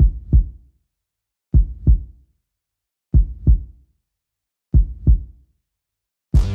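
Heartbeat sound effect: four low double thumps, lub-dub, about one every second and a half with silence between. Electronic music comes in just before the end.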